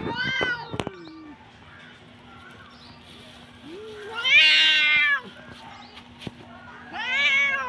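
Two domestic cats yowling at each other in an aggressive standoff before a fight. There are three long, wavering yowls: one ends about a second in, the loudest comes about four seconds in as one cat lunges, and another near the end.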